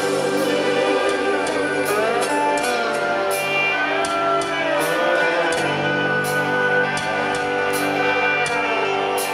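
Live band playing an instrumental passage without vocals: violin and lap steel guitar lines with gliding pitches over strummed guitar and a steady beat.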